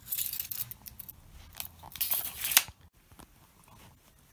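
Handling noise: a run of scraping, crackling rustles lasting about two and a half seconds, loudest just before it stops abruptly.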